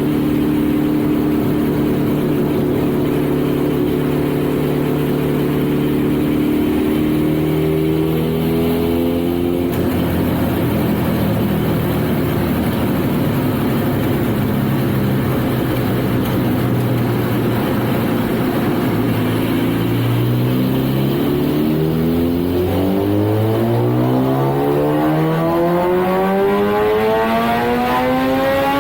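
Kawasaki ZX-14R's inline-four engine running on a dynamometer: held at fairly steady revs with a couple of drops in pitch like upshifts, then from about three-quarters of the way in the revs climb steadily in a pull.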